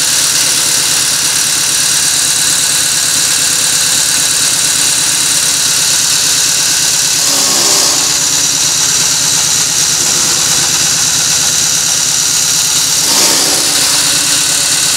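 Diesel generator engine running steadily with a rapid, even knock, driving an electric chaff cutter that chops straw with a constant hiss. Two brief louder swells come about halfway and near the end.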